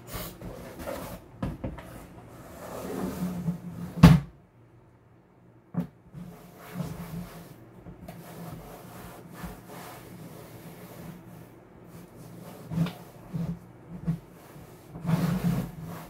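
Cloth wiping and rubbing inside a large plastic litter box, with hollow knocks of the plastic tub; the loudest is one sharp knock about four seconds in, and several smaller knocks come near the end.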